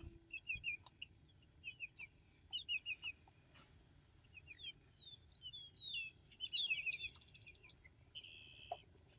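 Small birds chirping in short, high repeated phrases. About halfway through this becomes a longer, varied song with rising and falling notes and a buzzy trill. The last note of a low Attwater's prairie-chicken boom fades out at the very start.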